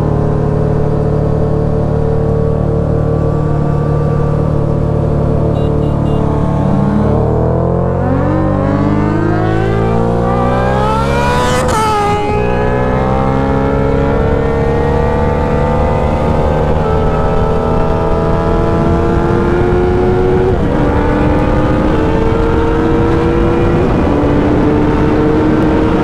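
Suzuki Hayabusa's inline-four engine, heard from the rider's seat, running steadily and then accelerating hard from about seven seconds in. The revs climb steeply to a shift about twelve seconds in, then keep climbing more slowly through two more upshifts near the end.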